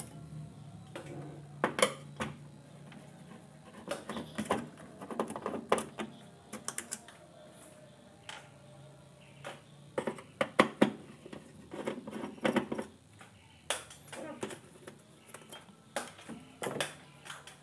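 Irregular small clicks and taps of a hand screwdriver working screws out of an LCD TV's metal chassis and power supply board.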